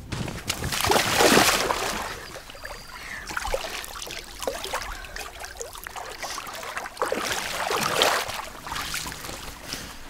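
Splashing and sloshing of people wading through shallow river water, with two louder spells of splashing, about a second in and again around seven to eight seconds in.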